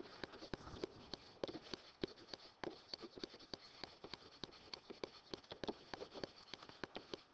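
A stylus tapping and ticking on a writing surface during handwriting: faint, irregular clicks, several a second.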